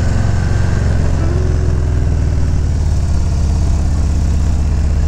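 Harley-Davidson Low Rider S V-twin engine and exhaust running steadily at an even speed while the motorcycle is ridden, a deep pulsing drone.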